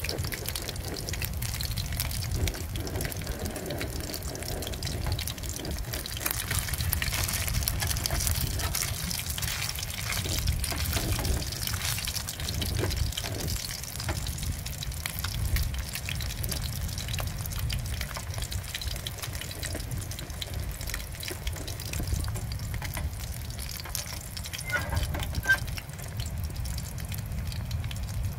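Fish tail frying in hot oil in a small pan on a portable gas stove: a steady sizzle with fine crackling spatters, over a low rumble.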